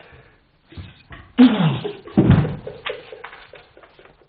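A pistol goes off with a sudden loud bang about a second and a half in. A second loud outburst with a falling, voice-like tone follows less than a second later.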